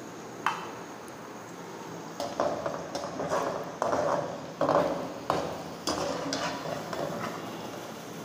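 Perforated metal skimmer scraping and knocking against an aluminium cooking pot in a series of irregular clatters as fried onion slices are scooped out of the oil.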